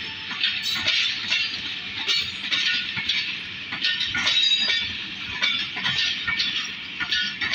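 Pakistan Railways passenger coaches rolling past, their wheels clattering and clinking on the rails in a dense run of irregular metallic clicks.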